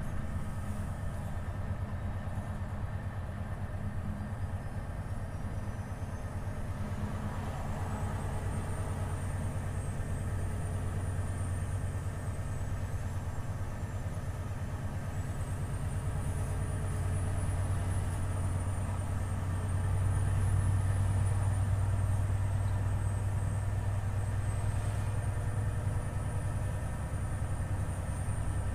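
Volvo FH 500 truck's 13-litre straight-six diesel running steadily, a deep even drone that grows a little louder about two thirds of the way through. A faint high whistle climbs over the first few seconds, then wavers up and down.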